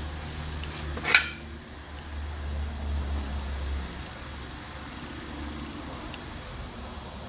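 Steady low hum of a fan or air-handling unit, with one sharp knock about a second in.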